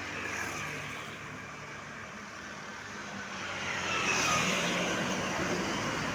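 Road traffic: a motor vehicle's engine running with tyre and road noise, growing louder about four seconds in as it comes close and then easing off.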